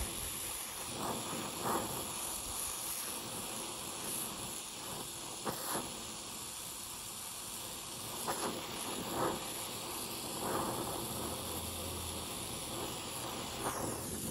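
Small oxy-fuel brazing torch flame hissing steadily as it heats a steel clamp arm, with a few short pops scattered through it.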